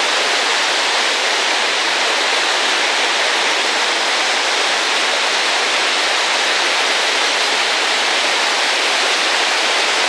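Giessbach Falls, a tall mountain waterfall, pouring onto rocks: a steady, unbroken rush of falling water with little deep rumble.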